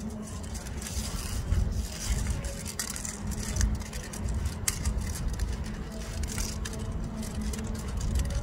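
Rubbing and scraping from a handheld phone's microphone over a low rumble and a faint steady hum, with a sharper click about halfway through.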